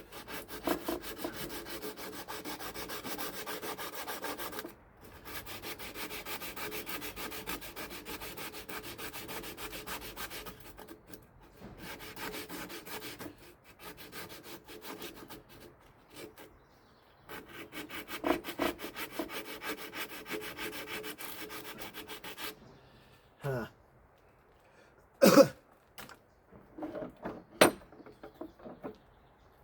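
Crusty, rusted metal car part being cleaned by abrasive rubbing: a fast, steady rasp in long stretches with short pauses. A few sharp knocks follow near the end.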